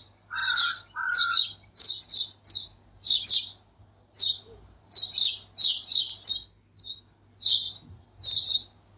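Small birds chirping: short, high chirps repeated irregularly about twice a second, with two lower calls in the first second and a half.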